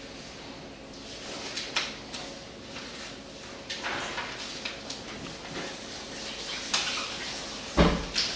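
Household kitchen clatter: scattered knocks and clinks of dishes and drawers being handled, with a louder thump near the end.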